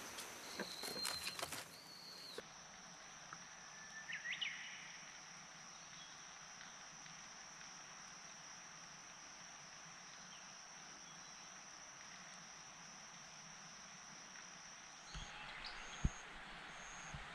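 Quiet rural outdoor ambience with a steady, high-pitched insect drone. In the first couple of seconds, dry garlic stalks rustle and click as a braid is handled. A short bird call comes about four seconds in. Near the end the high tone breaks into short regular chirps, about one a second, with a couple of soft knocks.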